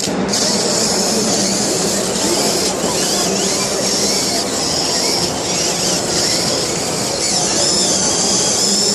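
Electric motors of a VEX competition robot whining steadily as it drives and raises its lifting arm, the high whine wavering in pitch.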